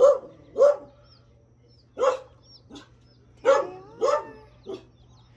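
A dog barking: six short, sharp barks in uneven groups, two near the start, one about two seconds in, then three close together near the end.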